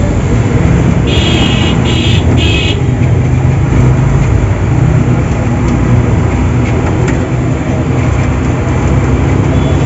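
A moving NBSTC bus heard from inside: a steady engine and road rumble. About a second in come three short high-pitched tones in quick succession.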